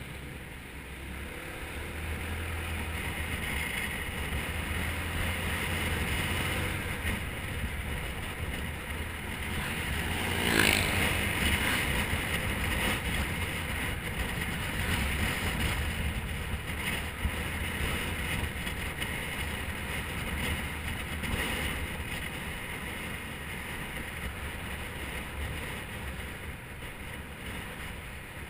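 Small motorbike engine running steadily at riding speed, heard through wind rush on the bike-mounted camera's microphone. A sharp knock comes about ten seconds in and is the loudest moment.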